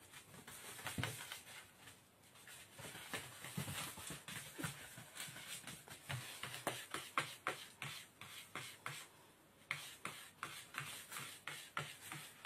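Spilled granulated sugar crunching and scattering under cats' paws as they scamper through it on the floor: an irregular run of faint crackles and ticks.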